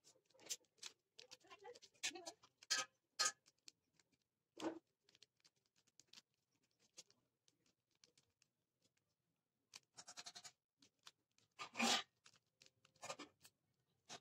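Plastic clicks and clacks of a mirror cube's layers being turned by hand in quick bursts, with pauses between them; a louder, slightly longer rasping sound comes near the end.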